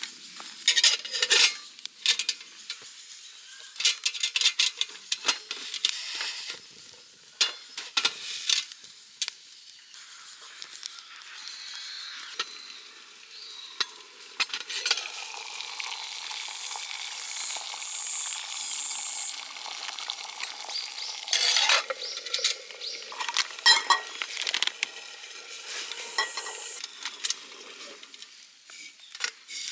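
Wood fire crackling in a small folding camp stove, with many sharp irregular pops and clicks over a steady hiss, and occasional metal clinks from a cooking pot and its lid.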